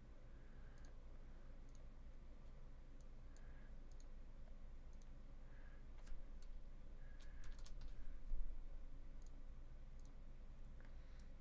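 Faint, scattered clicks of a computer mouse and keyboard, a few close together around six to eight seconds in, over a low steady hum. A low thump about eight seconds in is the loudest moment.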